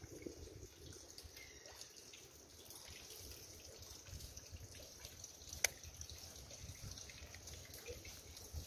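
Rain dripping, faint and steady, with one sharp click a little past halfway.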